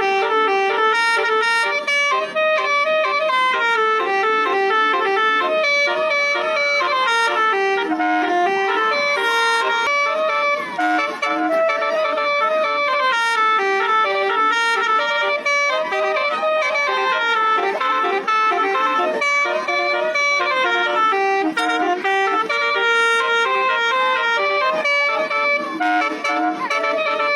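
Bus telolet horn, a set of electric air horns playing a continuous tune of short stepped notes with several tones sounding together.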